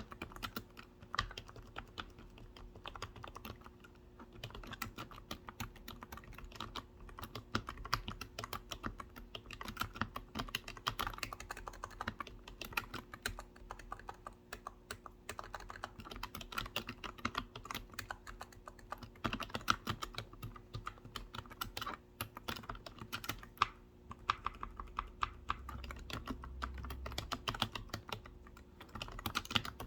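Continuous typing on a computer keyboard: quick, irregular key clicks with short lulls now and then, over a faint steady hum.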